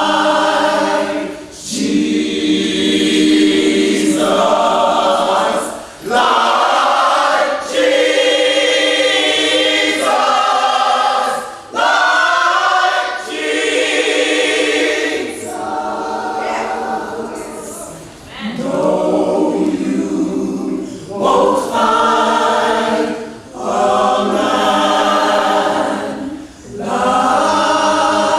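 Gospel choir singing in full voice, in phrases a few seconds long with brief dips between them.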